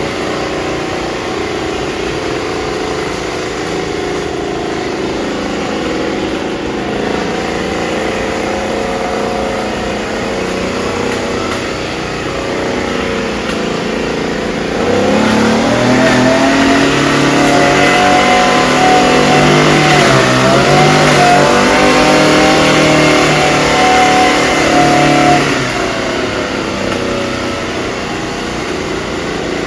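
Small engine of a disinfection spraying machine running steadily, then revving up about halfway through to a louder, higher pitch that holds for about ten seconds before dropping back.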